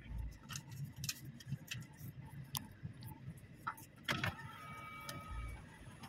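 Car waiting at a car-park exit barrier, heard from inside the cabin: a low engine rumble with scattered light ticks. About four seconds in comes a knock, then a steady electronic beep lasting about a second.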